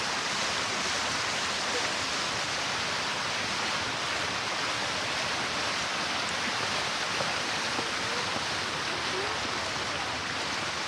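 Steady rush of water cascading down a fountain wall, with faint voices of people nearby.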